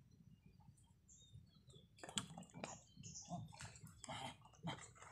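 Irregular small splashes and rustles as a fishing handline is pulled in by hand and a small fish comes up at the surface. They start about two seconds in, after near silence.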